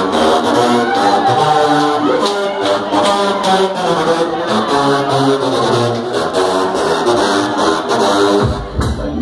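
Psytrance playing loud over a nightclub sound system: a stepping synth lead melody over fast hi-hat ticks, with the heavy kick and bass coming back in near the end.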